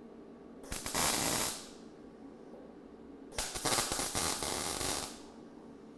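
Two bursts of crackling, hissing arc welding on a steel table frame: a short weld of about a second, then a longer one of about two seconds, as tack welds are laid.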